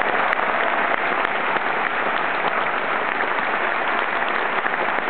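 Large theatre audience clapping steadily at a curtain call, a dense, even wash of many hands.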